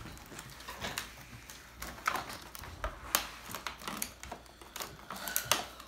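A toy blaster's cardboard box and plastic packaging being handled: irregular clicks, taps and scrapes as the blaster is worked free of its box insert.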